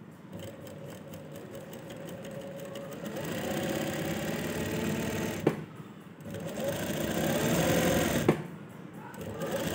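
Sewing machine stitching a seam through cotton cloth. It runs in spells and speeds up over the first few seconds. It stops twice, each time with a sharp click, then starts again.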